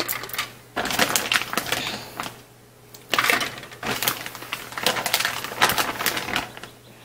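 Glass canning jars, a plastic canning funnel and a metal sheet pan clinking and clunking as raw chicken pieces are dropped into the jars: clusters of short knocks and taps over a faint low hum.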